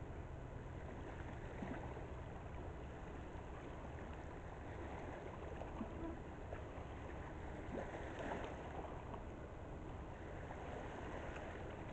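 Faint steady low rumble with a light hiss over it, broken by scattered small clicks and taps.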